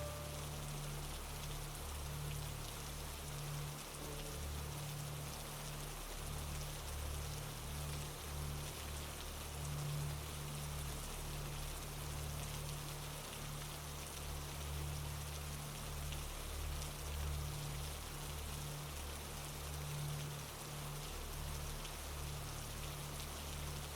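Steady rain falling in an even patter, with a strong, wavering low rumble beneath it.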